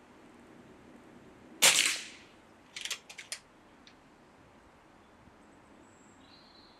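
A single shot from a Reximex Zone regulated pre-charged air rifle firing a .177 pellet: one sharp crack with a short fading tail. About a second later comes a quick run of four or five clicks as the side lever is worked to load the next pellet.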